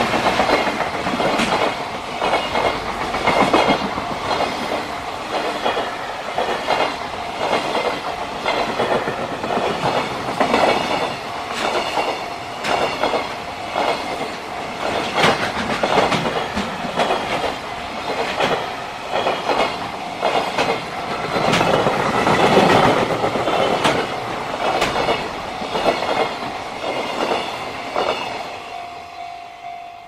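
A long freight train of container flatcars passing close by, its wheels beating out a continuous clickety-clack over the rail joints. The noise fades near the end as the last wagons pass.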